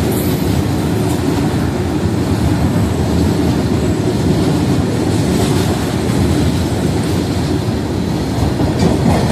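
Goods train of BTPN tank wagons running past at speed, close by, with a loud, steady noise of its wheels on the rails.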